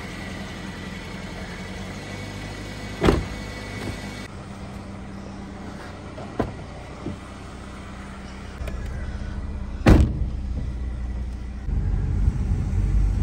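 A car's engine running steadily, with small latch clicks around six to seven seconds in and a car door shutting with a loud thump about ten seconds in, after a sharper knock near three seconds. The engine and road noise grow louder near the end as the car moves off.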